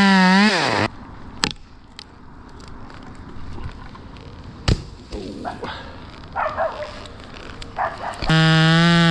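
Two-stroke chainsaw run briefly at full throttle, then released so the engine pitch falls away to idle, about a second in. Quieter stretch with a few sharp knocks and rustles, then the saw revs up again at a steady high pitch near the end and drops off unevenly.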